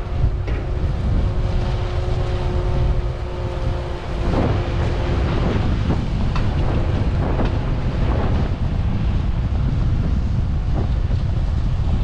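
Harvest machinery running under heavy wind buffeting on the microphone: a deep rumble throughout, with a few steady engine tones that fade out about four seconds in.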